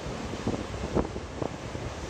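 Heavy sea surf breaking and washing over rocks, a steady rushing wash with low rumble, with wind buffeting the microphone in irregular gusts.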